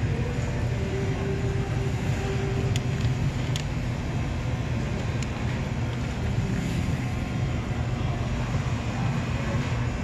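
Steady low rumble of a supermarket's background noise, with a few light clicks about three and five seconds in.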